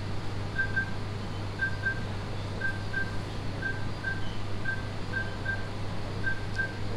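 Heart monitor beeping with each heartbeat: short high beeps about once a second, most of them as a quick double beep, over a steady low hum of equipment.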